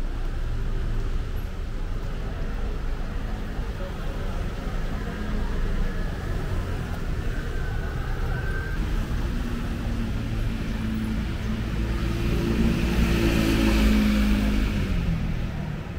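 Steady city street traffic rumble. A motor vehicle passes close about twelve seconds in, growing louder to a peak near fourteen seconds, then fading.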